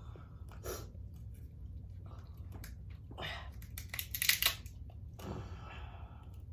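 Eating king crab close to the microphone: chewing, with the crunch and crackle of crab shell being broken. The loudest is a quick cluster of sharp crackles about four seconds in.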